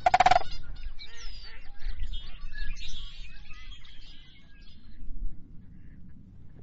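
Geese honking: one loud honk at the start, then many overlapping calls from the flock that thin out after about four seconds.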